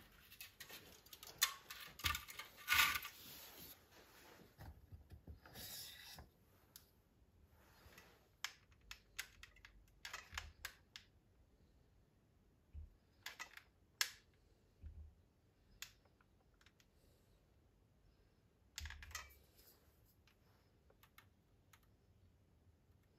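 Light, irregular clicks and taps of bamboo tubes, a hot glue gun and a plastic disc being handled and set down on a wooden workbench, busiest in the first few seconds, with a short scratchy rustle near the end.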